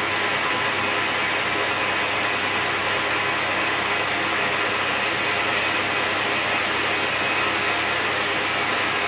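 Lathe running steadily while a very light facing cut is taken off the female side of a pool cue's joint, trueing the face so the joint screws together without gaps.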